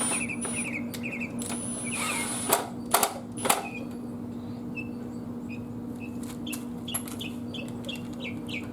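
Birds chirping in quick, repeated short notes, over a steady low hum. Three sharp knocks in the middle, from work on the motorcycle, are the loudest sounds.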